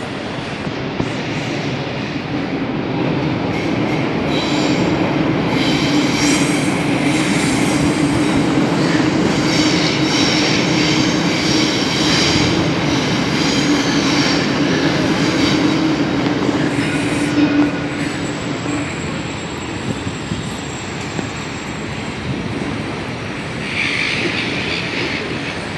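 Double-deck electric passenger train running past on the elevated track: a steady low hum, with high-pitched wheel squeal over the middle of the pass. The squeal dies away about two-thirds of the way through, and the hum stops soon after.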